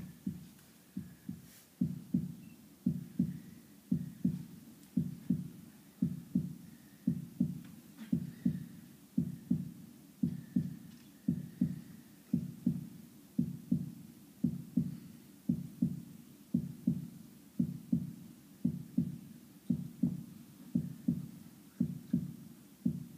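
Heartbeat sound effect played through a speaker: a steady run of low double thuds, lub-dub, about one and a half beats a second.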